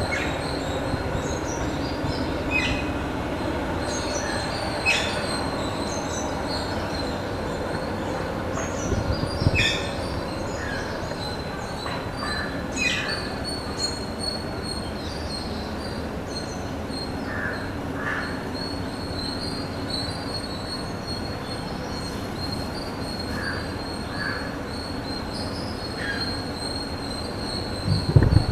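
Steady outdoor background noise with a thin, continuous high-pitched tone and scattered short bird chirps. There are a couple of low knocks near the start and end.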